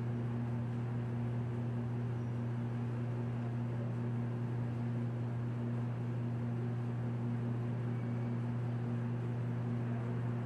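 Steady low hum of a ventilation fan running, a constant pitched drone with a noisy hiss over it.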